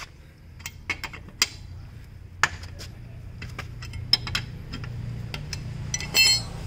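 Steel L-shaped wheel wrench clicking and clinking against the wheel nuts of a car's steel wheel as the nuts are loosened, in a dozen or so separate sharp metallic ticks. About six seconds in comes a louder metallic clatter that rings briefly.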